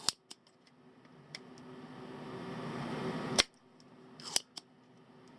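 Sharp clicks of small hand tools on the multimeter's circuit board: two near the start, a faint one a little past a second, the loudest about three and a half seconds in and a quick pair just past four seconds, over a faint hiss.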